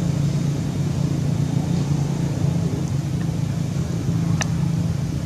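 Steady low engine hum, like a motor vehicle idling or running nearby, with a single brief high chirp about four seconds in.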